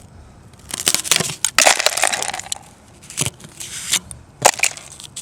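Glaze ice crunching and cracking in several irregular bursts of crackling, densest about a second or two in, with more sharp bursts near the end.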